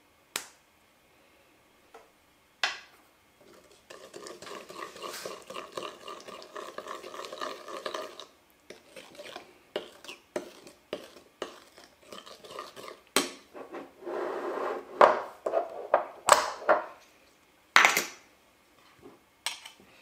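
Dishes and cutlery being handled: sharp clinks and knocks, with about four seconds of continuous rattling scraping a few seconds in and a cluster of clinks later on.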